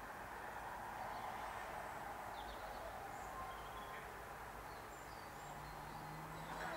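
Faint outdoor background noise with scattered short, high bird calls. Near the end a low hum sets in and rises steadily in pitch.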